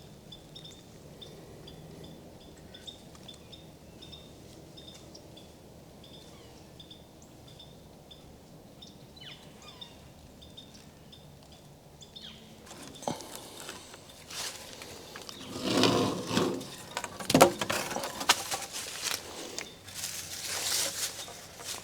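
Faint birds chirping over quiet outdoor background for about twelve seconds, then a spell of irregular louder rustling, cracks and knocks of handling work.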